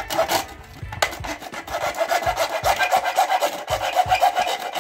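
A bare hacksaw blade, held in the hand, sawing into the wall of a red plastic electrical flush box in quick, even back-and-forth strokes.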